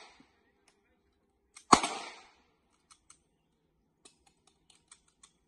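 A single pistol shot about two seconds in, with a short echoing tail, followed by a few faint small clicks.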